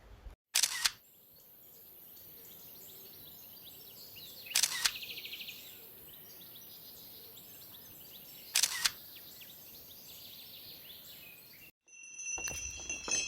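Camera shutter firing, three single clicks about four seconds apart over a faint steady outdoor background.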